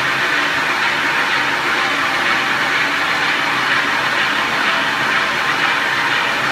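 Heavy roll-turning lathe running, a steady even noise with a low hum underneath.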